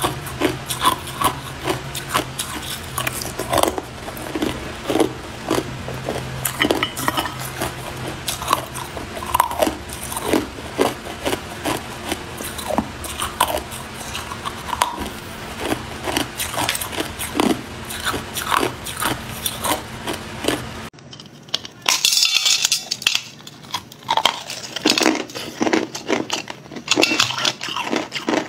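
Hard clear ice being bitten and crunched between teeth, with a long run of sharp, separate cracking crunches. After a cut about three-quarters of the way through, it changes to denser crunching of packed crushed ice.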